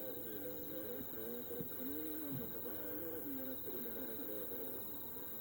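A distant, unintelligible voice talking on and off, with a faint insect trill behind it; no firework bursts are heard.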